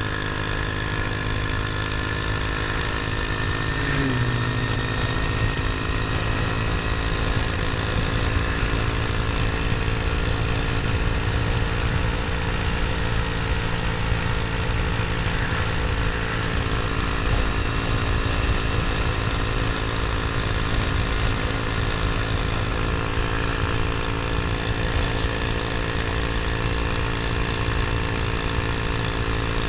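Small motor scooter engine running at a steady cruising speed while riding, with a brief dip and recovery in pitch about four seconds in. Wind rumbles on the microphone underneath.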